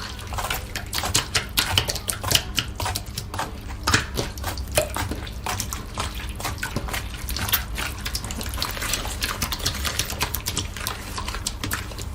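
Slime being squished and worked by hand, a dense, irregular run of wet clicking pops and squelches.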